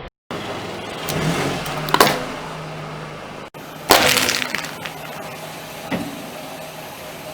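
Car tyre rolling over brittle objects and crushing them, over the steady hum of the car's engine: crunching builds to a loud crack about two seconds in. The sound breaks off, then a second loud crack around four seconds trails into crackling, with a smaller snap near the end.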